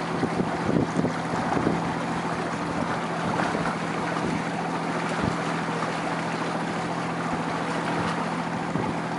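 Boat motor running at a steady pitch, with wind and water noise over it.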